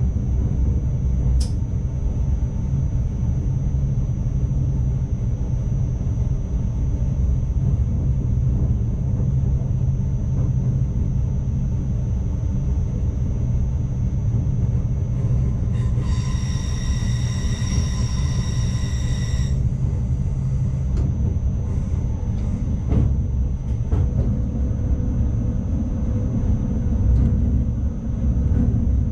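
An ICMm (Koploper) electric intercity train at speed, heard from inside the driver's cab: a steady low rumble of wheels and running gear with a faint high whine. About halfway through, a high steady tone sounds for about three and a half seconds.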